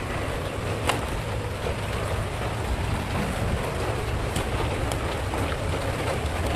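Wind buffeting the microphone outdoors: an uneven low rumble over a steady rushing hiss, with a few faint clicks.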